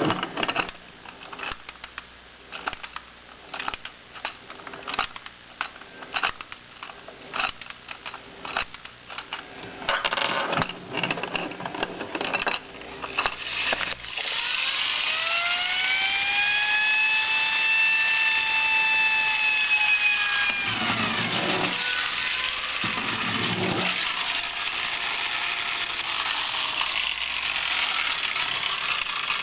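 1930s Marx tinplate clockwork police motorcycle: a run of irregular mechanical clicks and rattles, then about halfway through its spring-driven mechanical siren whirs up into a steady wail, holds for several seconds and winds down, followed by a lower, fainter wail near the end.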